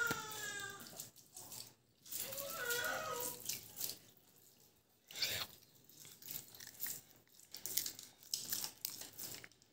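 Spoon stirring and scooping watery fermented rice (basi pakhal) in a steel bowl: the rice water sloshes and the spoon clicks against the metal, mostly in the second half. Two short high-pitched calls come in the first few seconds, one at the start and one about two seconds in.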